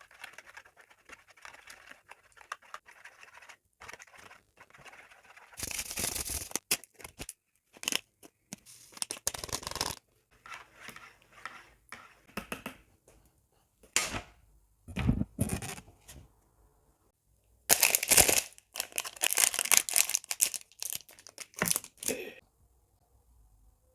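Kit packaging being torn open and handled by hand: irregular bursts of tearing and crinkling with scattered clicks. It is faint at first and loudest from about two-thirds of the way in.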